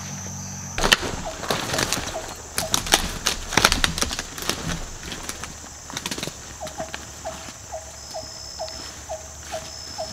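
Forest sounds: a run of sharp crackles and knocks for the first few seconds, then an animal's short rising call repeated about three times a second, with brief high buzzing notes near the end.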